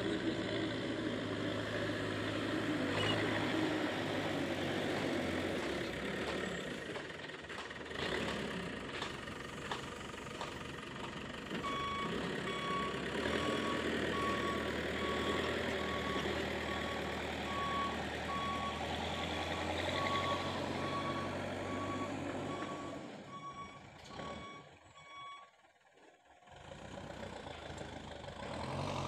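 Manitou backhoe loader's diesel engine running steadily while it works. From about twelve seconds in, its reversing alarm beeps at a steady pace, roughly once a second. The sound drops away briefly near the end, then the engine returns.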